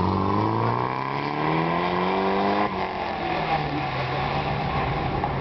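Car engine revving up under acceleration, its pitch climbing steadily, then dropping abruptly about two and a half seconds in as the driver shifts up, and pulling on at a lower note.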